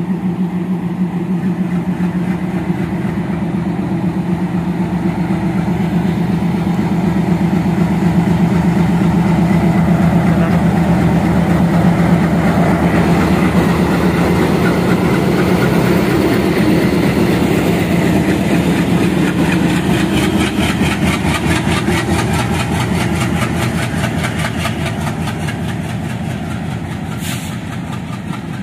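ALCO WDG3A diesel locomotive's 16-cylinder 251 engine working hard, throwing black exhaust smoke, as it hauls a passenger train close past. The steady low engine note grows louder as the locomotive passes, then gives way to a fast, even rhythmic clatter of coach wheels that fades as the train moves away.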